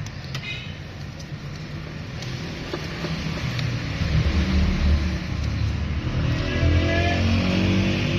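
A motor vehicle engine running, its pitch rising as it revs up in the last couple of seconds.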